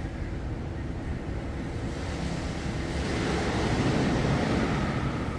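Steady rushing wind noise on the microphone, swelling about halfway through.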